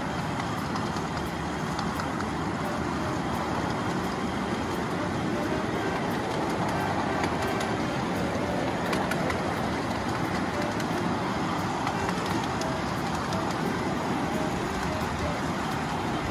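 1/8-scale live steam Pacific locomotives running with their trains on the track: a steady rumble of wheels on rail with faint clicks here and there.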